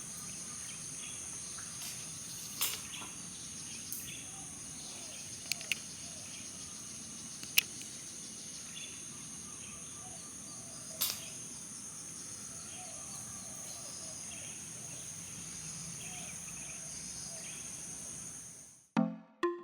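Steady high-pitched insect chorus, with a few short sharp clicks over it. Electronic music cuts in near the end.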